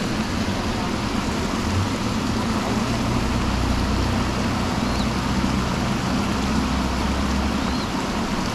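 Steady rush of water spilling over a concrete weir, with a low rumble that swells from about two seconds in and fades near the end.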